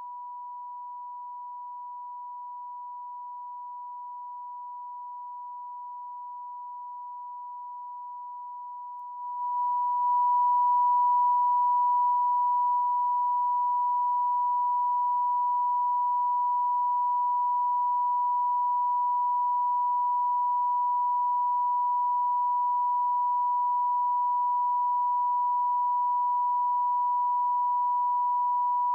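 Steady, unbroken test tone of a TV off-air colour-bar card, signalling a technical break in broadcasting. About nine and a half seconds in it jumps louder and turns slightly harsher.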